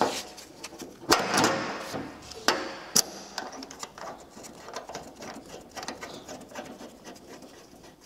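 Metal handling sounds as a preformed copper tail is fitted and its brass nut threaded hand-tight onto a brass central-heating valve. A scrape and a few sharp metallic clicks come in the first three seconds, then fainter ticking as the nut is turned.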